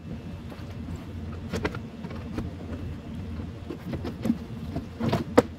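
Steady low buzzing hum under scattered clinks and knocks of hand tools against the stripped-out dashboard frame, with a sharp knock near the end the loudest.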